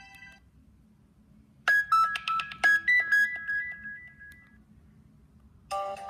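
Nokia 2700 Classic phone speaker playing a built-in message alert tone: a short melody of quick, bright chime-like notes about two seconds in, ringing out over a couple of seconds. The previous tone is fading at the start, and the next one starts just before the end.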